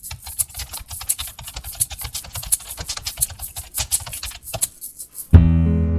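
Typing on a computer keyboard: quick, irregular key clicks several times a second. About five seconds in, loud guitar music starts.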